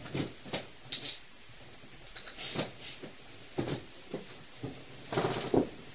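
A few scattered short knocks and clicks, the loudest pair near the end.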